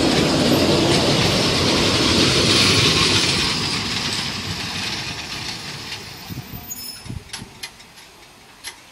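Narrow-gauge passenger coaches rolling along the rails with a clickety-clack as the arriving train slows. The rolling noise is loud for the first few seconds, then fades, leaving a few sharp clicks and short high squeaks near the end.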